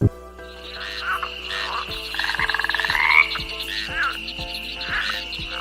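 Frogs calling: a pulsed trill lasting about a second near the middle, over a steady high-pitched chorus and softer repeated calls.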